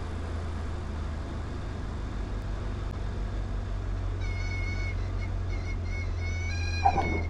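Light aircraft engine droning steadily in the cockpit. Partway through, the stall warning starts chirping on and off, then sounds as one steady tone as the plane flares to land. A sharp thump near the end marks the touchdown.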